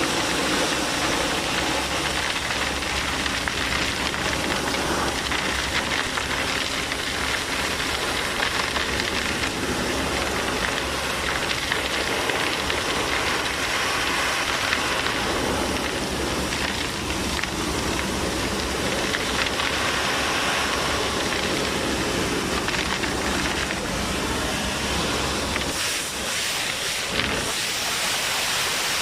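Vacuum excavator running, a steady loud hiss of suction air over a low engine drone. Near the end the low drone drops away while the hiss carries on.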